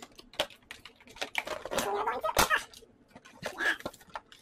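Cardboard doll box and its plastic packaging being handled as a doll is worked out of it: a run of small irregular clicks, taps and crinkles.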